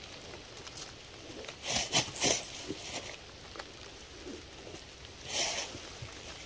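Faint rustling and scraping in a few short bursts, a cluster about two seconds in and another near five and a half seconds.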